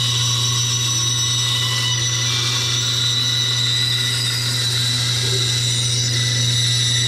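Band saw running steadily, its blade cutting through a wooden board being fed along a pencil line. A steady motor hum sits under a high whine and the hiss of the cut.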